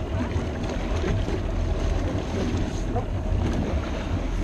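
Steady wind rumble on the microphone, with water sloshing against the boat's side as a swimmer is hauled up out of the lake.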